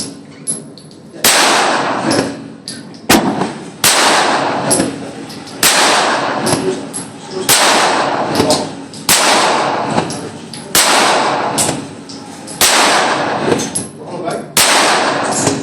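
Tanfoglio 9mm pistol shots in an indoor range: about nine loud shots at a steady pace, roughly one every two seconds, each with a long echoing tail, with a few fainter cracks between them.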